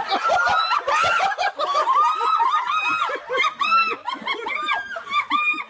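Hard, high-pitched laughter in a long run of short bursts, about three a second.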